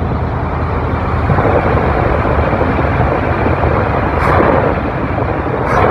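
1995 Chevrolet Suburban's 350 V8 with throttle-body fuel injection idling steadily, just started on a fresh pair of injectors that are both spraying fuel.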